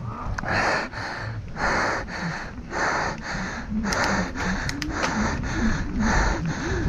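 Mountain biker breathing hard and rhythmically into a clip-on microphone, about one heavy breath a second from exertion, with a few sharp clicks and rattles from the bike.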